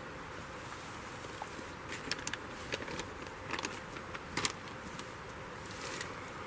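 A cluster of short clicks and rustles, as of something being handled, about two to four and a half seconds in, the sharpest near the end of it, over a steady outdoor hiss.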